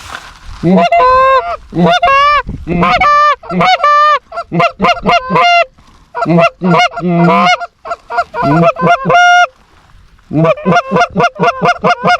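Goose honking and clucking: many quick, loud calls in runs broken by short pauses.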